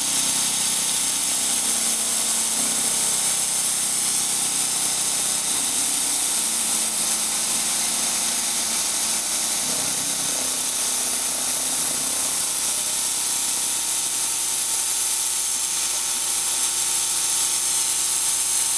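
Milling machine spindle running steadily as a quarter-inch end mill roughs out the waste material between the spokes of a brass gear, with a steady high hiss.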